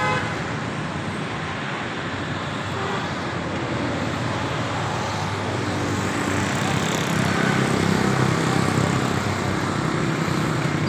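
Motor vehicle running with road noise, a steady rumble that swells slightly about six seconds in.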